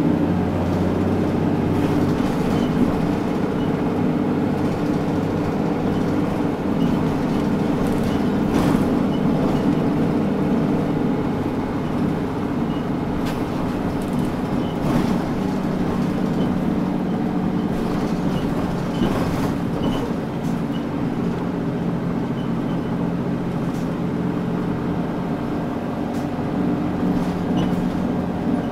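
Diesel engine of a Mitsubishi Fuso Aero Midi KK-MK27HM mid-size bus running steadily as the bus drives, heard from inside the cabin. The engine pitch shifts a little along the way, and there are a few short clicks and rattles.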